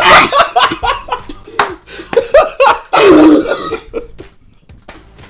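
A man laughing hard in loud bursts while another man gags and coughs, spitting a mouthful of food into a bucket. The laughter dies down after about three and a half seconds.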